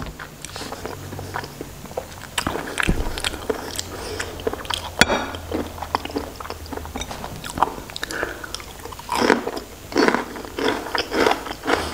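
Close-miked eating of raw shrimp with chili sauce: irregular biting and chewing with sharp wet mouth clicks throughout.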